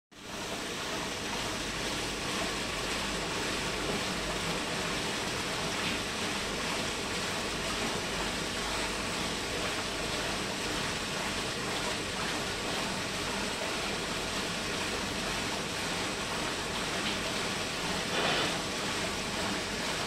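Steady rush of water flowing through the pipework of a YCM-02 combi drum filter during a flow test, with a brief slightly louder surge near the end.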